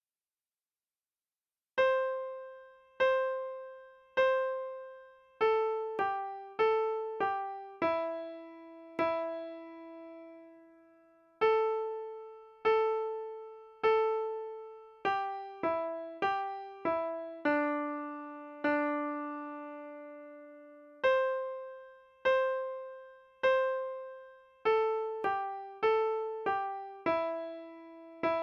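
Piano playing a simple one-note-at-a-time beginner melody after a short silence. It has three repeated struck notes, then quicker notes stepping down to a longer held low note, and the phrase returns later.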